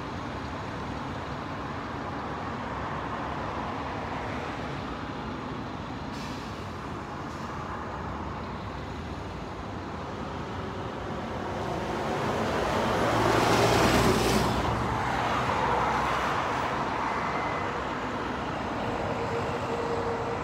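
Steady city road traffic. About two-thirds of the way through, a heavy vehicle passes close by: its low engine hum and tyre noise swell up, peak and fade.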